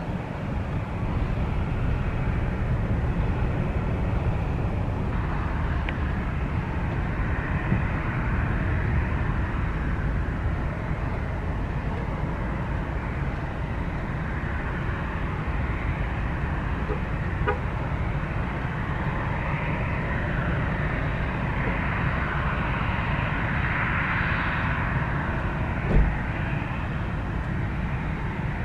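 Jet airliner engine noise: a steady low rumble under a rushing hiss that swells through the middle and is loudest a few seconds before the end. A single short thump near the end.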